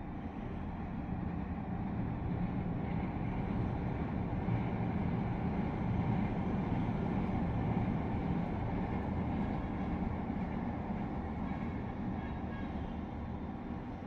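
Steady hum of city traffic with a light-rail train, an LRT Line 1 train on Taft Avenue, passing below. Its low rumble swells over several seconds, is loudest midway, and fades away.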